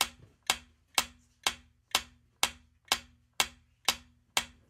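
Countdown-timer ticking sound effect: sharp, even clock-like ticks about two a second, each with a short low hum after it.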